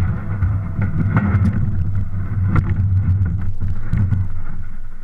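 Plastic hull of a Tarpon sit-on-top kayak being dragged up a sandy, grassy bank. The camera is mounted on the hull, so it picks up a loud, continuous low rumble broken by frequent scraping knocks.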